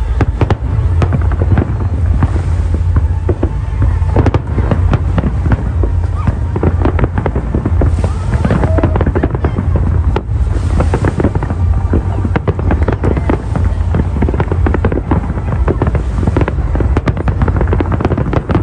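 Fireworks going off in quick succession: a near-continuous stream of sharp bangs and crackles.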